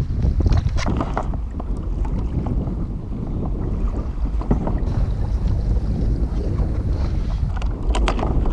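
Wind buffeting the microphone over water moving around a plastic kayak, with scattered knocks and clicks as a large tuna is handled on the deck, a quick cluster of them near the end.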